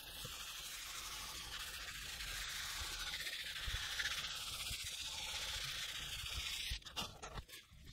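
Dye dauber rubbing back and forth over vegetable-tanned leather, a steady scrubbing hiss as alcohol-diluted dye is worked in. The rubbing stops about seven seconds in, followed by a few light knocks.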